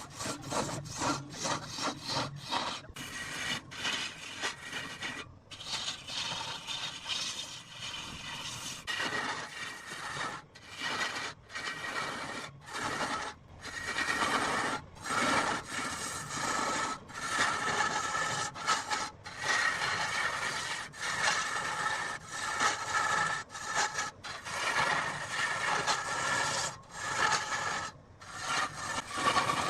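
Rosewood being cut by a tool that scrapes across it in quick repeated strokes, each broken by a brief pause, with a faint ringing edge in the second half.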